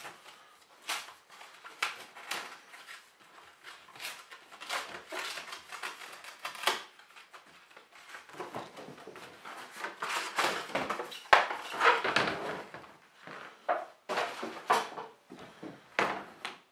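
Hands opening a cardboard product box on a tabletop: a run of short scrapes, rustles and taps of cardboard. They are busiest in the middle, with a sharp click there, and then a hard plastic carrying case is handled.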